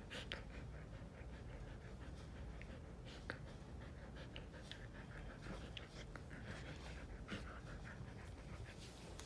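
Husky mouthing and play-biting a hand: soft, irregular clicks of teeth and lips with light panting.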